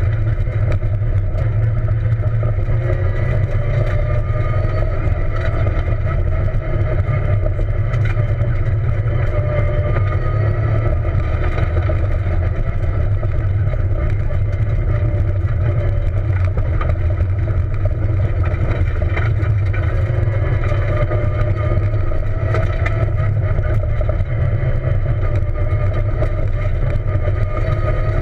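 Peugeot 207 rally car driven hard on a dirt road, heard from inside the cabin: a steady, loud engine note whose pitch rises and falls gently, over a heavy low rumble, with a few sharp clicks.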